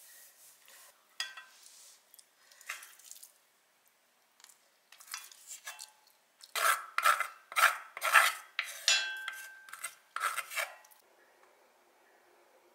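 A wooden spoon scraping and knocking against the inside of an enamelled cast-iron Staub pot as food is scooped out, in a run of scrapes that is loudest and busiest from about six seconds in and stops about eleven seconds in.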